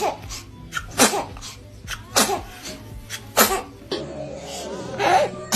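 A baby sneezing in a run of small, sharp sneezes, about one a second.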